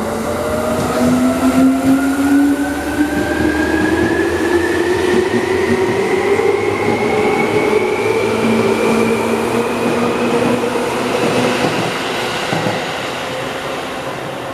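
Seibu New 2000 series electric train's traction motors whining as it accelerates, several tones rising steadily in pitch, over the rumble of wheels on rail.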